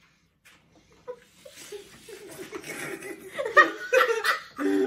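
People laughing: quiet at first, then chuckling that swells into loud bursts of laughter about three seconds in.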